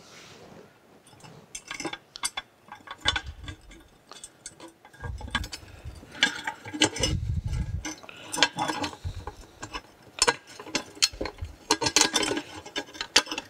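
Small 10-24 flathead screws and nuts clinking and rattling against a metal panel plate as they are fitted and started by hand: irregular light metallic clicks, with a few dull knocks of the plate shifting on the bench.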